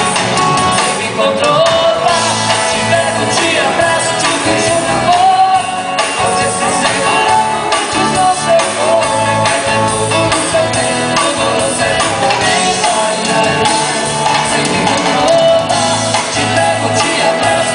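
A song with a singing voice over band accompaniment with a steady beat.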